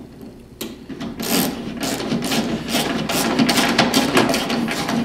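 Ratchet wrench with a 9/16-inch socket clicking rapidly as it drives a lag screw through a metal barn-door track into the wall, starting about half a second in.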